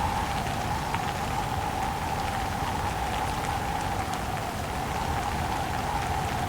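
Steady rain with a dense spatter of drops, together with wind carrying a whistling tone that sinks a little in pitch and rises again near the end.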